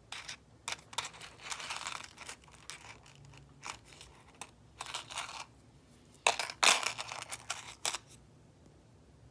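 Handling noise as a gold chain is picked up and turned over: irregular small clicks and taps with bursts of rustling, the loudest about six to seven seconds in.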